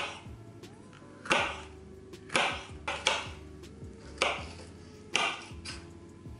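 A chef's knife chopping a green bell pepper on a cutting board: sharp knocks of the blade hitting the board, about eight of them at uneven intervals, roughly one a second, with quiet background music underneath.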